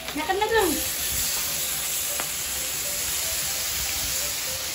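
Pork belly slices sizzling on a grill pan: a steady frying hiss that gets louder about half a second in and then holds.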